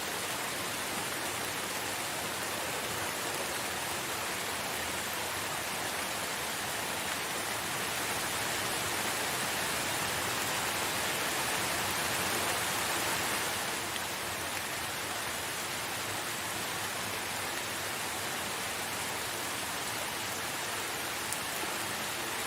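Steady rain falling, an even hiss that swells slightly for a few seconds mid-way before settling back.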